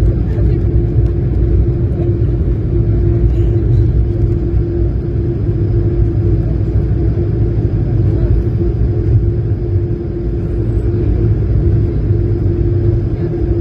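Airbus A220-300 cabin noise heard from a window seat beside the wing: the Pratt & Whitney PW1500G geared turbofans and the airflow give a steady low rumble with a constant hum over it.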